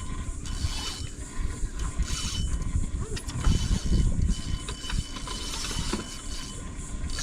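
Fishing reel being cranked in stretches while a fish is fought on the line, with a steady rumble of wind on the microphone.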